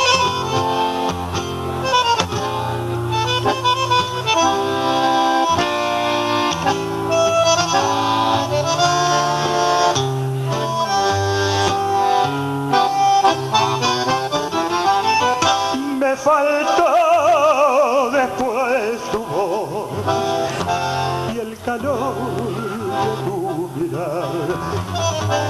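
Live tango band playing an instrumental passage between sung verses: a reedy accordion-type lead over bass notes and short detached chords, with a wavering vibrato melody line coming forward about two-thirds of the way through.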